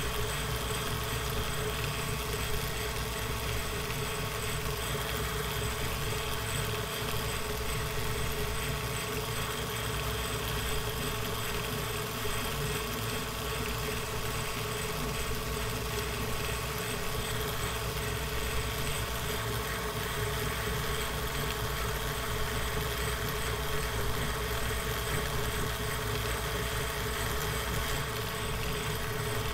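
Atlas 10-inch metal lathe running steadily, taking a cut on steel bar stock with a high-speed steel tool under power feed.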